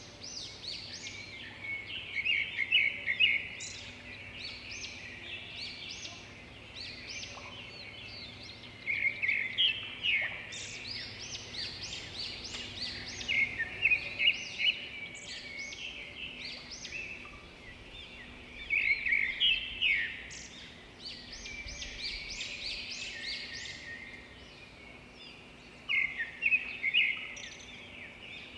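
Small birds chirping and twittering continuously, with louder clusters of rapid chirps every several seconds.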